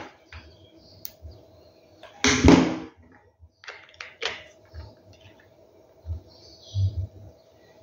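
Handling noises of hot-glue crafting with gravel: a short clatter about two seconds in, fitting a plastic glue gun being set down on the table. It is followed by a few sharp clicks and a couple of soft knocks as small stones are pressed onto a cardboard tube.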